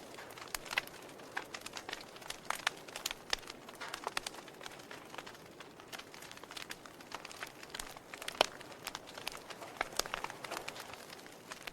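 Wood fire crackling in a fireplace: a steady soft hiss with irregular sharp pops and snaps, the loudest about eight and a half seconds in.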